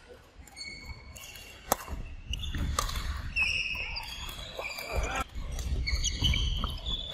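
Badminton rally on a wooden court: sharp smacks of rackets hitting the shuttlecock, the sharpest about two seconds in, amid short squeaks of players' shoes on the floor.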